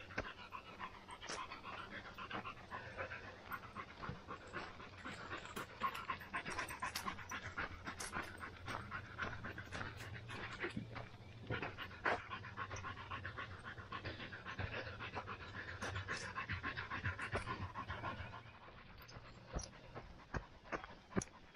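Rapid, continuous panting breaths mixed with the irregular tap of running footsteps on a trail.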